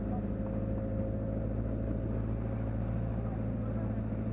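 A vehicle engine running at a steady speed, a continuous low hum that holds an even pitch.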